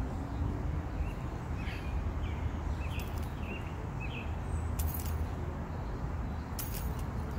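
Scissor jack being cranked by hand under a car, with a few light sharp metallic clinks spread through, over a steady low outdoor rumble. A few bird chirps come in about two to four seconds in.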